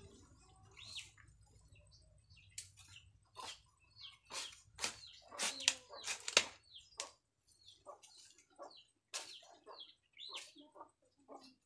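A short-handled blade chopping and scraping into dry soil: irregular sharp strikes, busiest around the middle. Bird calls are faintly heard now and then.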